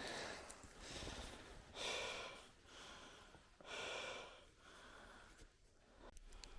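A person breathing hard close to the microphone, four audible breaths about a second or two apart, then quieter.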